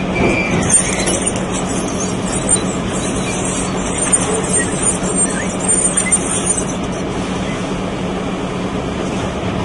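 Sawmill ring debarker running as a log feeds through it: a steady machine hum under dense scraping and rumbling as the rotating tools strip the bark, with a few sharper knocks.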